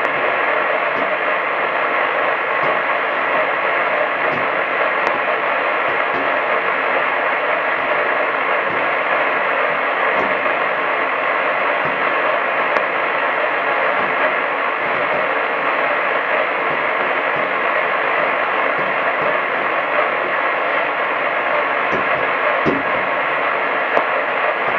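Medium-wave AM radio receiver giving out a steady hiss with no programme audio, cut off above about 4 kHz, with a few faint clicks of static.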